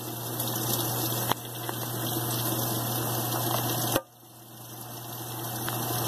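Brastemp BWL11 top-loading washing machine filling with water at the start of its rinse stage: a steady rush of water with a low hum, growing louder. The sound drops away sharply about four seconds in and then builds up again.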